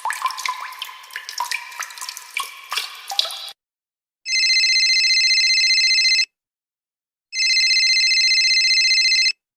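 Water drops dripping with quick plinking tones for about three seconds, then an electronic telephone ringing twice, each ring about two seconds long with a one-second pause between.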